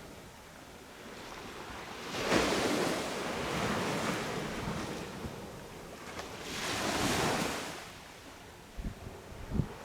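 Sea waves breaking on a beach: a wave crashes sharply about two seconds in and washes out, and a second, gentler one swells and fades around seven seconds in. Two short low thumps from wind buffeting the microphone come near the end.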